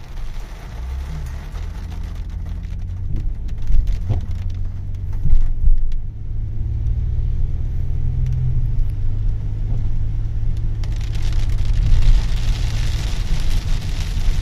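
A car driving in rain, with a steady low road-and-engine rumble. The rain hiss thins out a few seconds in and comes back strongly near the end, and there are a couple of louder knocks early on.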